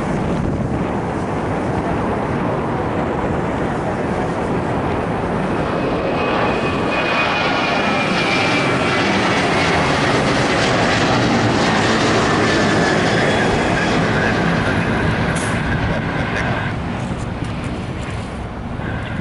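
Boeing 737 jetliner's twin turbofan engines at takeoff power as it climbs out, a continuous roar that swells to its loudest as the plane passes overhead and then begins to fade. A faint whine slides slowly down in pitch as it goes by.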